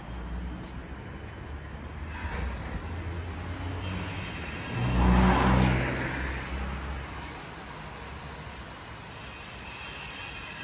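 A vehicle passing close by over a steady low rumble, swelling to its loudest about halfway through and then fading.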